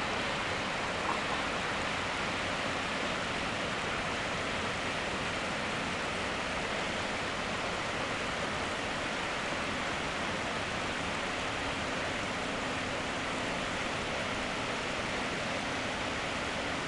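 Steady, even rush of river water, a continuous hiss without breaks.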